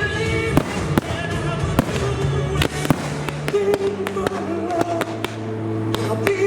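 Fireworks going off in a rapid, irregular string of sharp bangs and crackles, several a second, over loud music with held notes.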